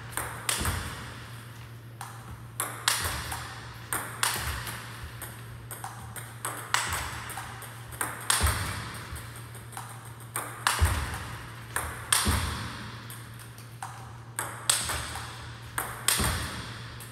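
Table tennis forehand smash drill: the ball clicks off the rackets and bounces on the table in quick runs, about every second or two, with the louder smashes ringing briefly in the hall. A steady low hum runs underneath.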